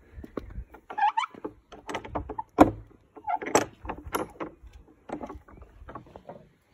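Wooden gate being handled and opened: a run of knocks and rattles from the boards and latch, with short creaks, the loudest knock a little under three seconds in.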